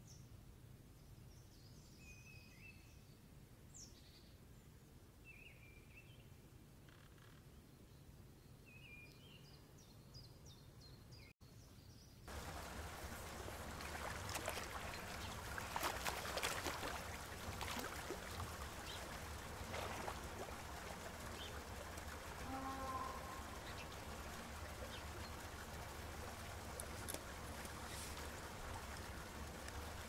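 A few faint, short chirping calls of a red-backed shrike, scattered over the first ten seconds. After a sudden cut, a louder steady wash of water noise from a penguin enclosure's pool, with scattered small knocks.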